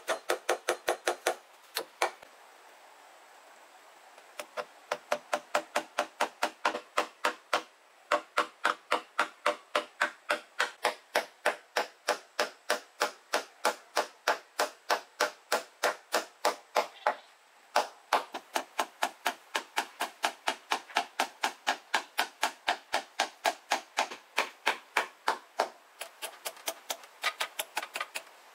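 A fast, even run of sharp knocks, about four a second, as from steady hammering or chopping. It pauses for about two seconds early in the run and breaks briefly about two-thirds of the way through.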